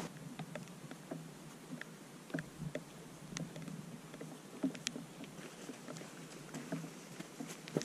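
Light rain: scattered drops ticking irregularly close by over a soft, steady rain noise.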